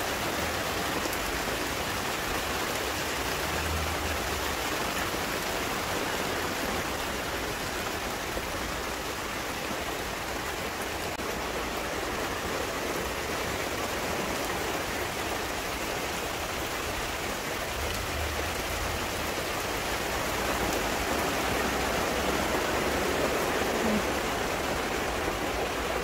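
Heavy rain falling steadily on garden foliage, an even hiss that grows a little louder near the end.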